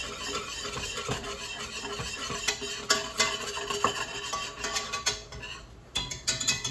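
A wire whisk stirring Alfredo sauce in a tall stainless steel stockpot, with rapid metallic scraping and clicking against the pot. The whisking eases off about five seconds in, leaving a few scattered clicks.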